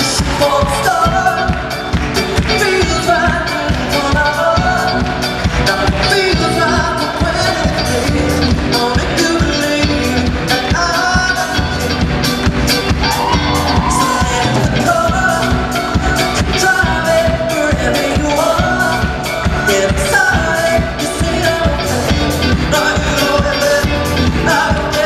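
Live pop band with a male lead vocalist singing over a steady drum beat, part of a medley of pop covers.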